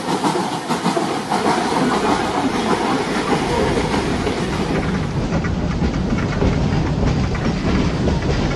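Train running on rails, wheels clattering over the track with a low rumble that builds from about two seconds in.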